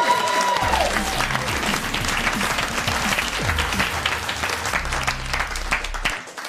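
Applause over a short music sting with a low bass line. Both stop abruptly about six seconds in.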